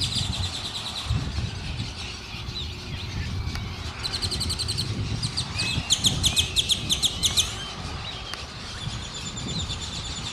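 Birds calling in a heron and egret nesting colony: rapid trains of high, ticking chirps that come and go, loudest about six to seven and a half seconds in, over a low background rumble.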